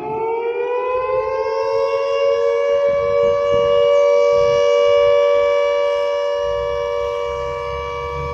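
Civil defense warning siren winding up in pitch for about the first two seconds, then holding a steady two-note chord, growing louder toward the middle and easing off slightly near the end. A low rumble joins underneath in the last couple of seconds.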